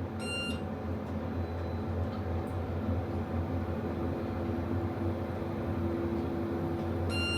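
Steady hum inside a modernized hydraulic elevator cab as it rides down. Two short high electronic beeps sound, one just after the start and one near the end.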